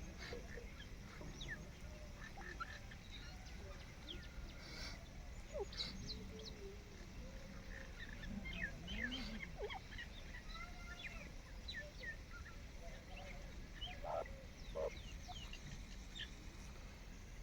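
Birds calling faintly: scattered short chirps and whistling glides from several birds, among them teetar (francolins), with a slightly louder call about fourteen seconds in.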